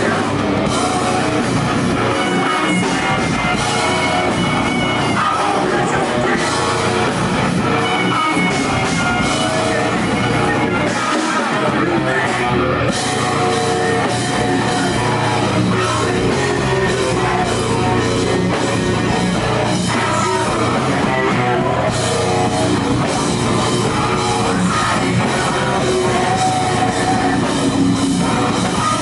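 A live rock band playing loud, with electric guitar and drum kit going throughout.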